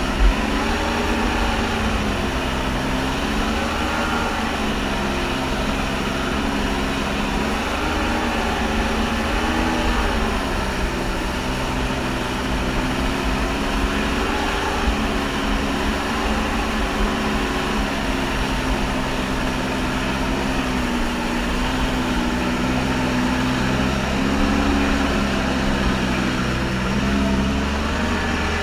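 Kawasaki JS550 stand-up jet ski's two-stroke twin engine running under way, its pitch rising and falling again and again as the throttle changes, over the rush of water spray.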